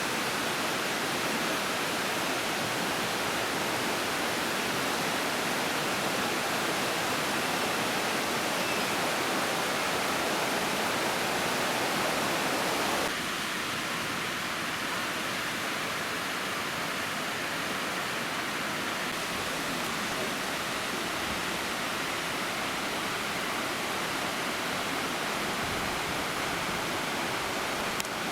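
Steady rush of a waterfall's falling water. About 13 seconds in it steps down a little in level and loses some of its lower body.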